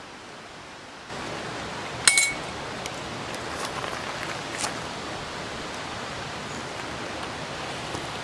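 A single sharp metallic clink that rings on briefly, about two seconds in, followed by a few fainter light taps, over a steady rushing background noise that turns louder just after one second in.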